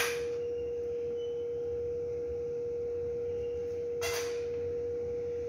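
A steady single high tone hums without a break. About four seconds in there is one short scrape as metal tweezers press an antibiotic disc onto an agar plate.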